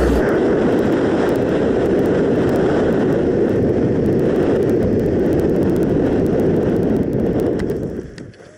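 Air rushing over the microphone of a skydiver's camera during a parachute descent, a steady rushing noise that dies away shortly before the end as the skydiver touches down.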